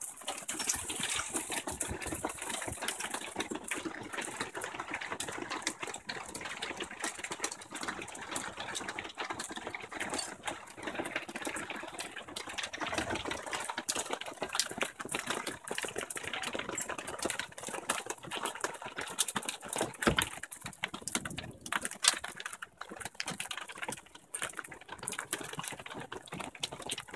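Hailstorm: a dense, continuous rattle of many small hailstones hitting the ground and objects around, some ticks louder than others.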